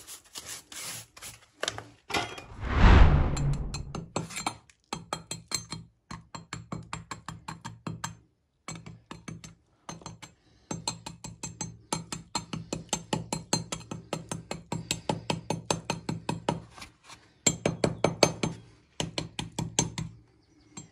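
A metal-bladed hand tool chipping and scraping at a stone bench in rapid strikes, several a second, knocking off loose cement and dust. There is a longer scrape about two to four seconds in.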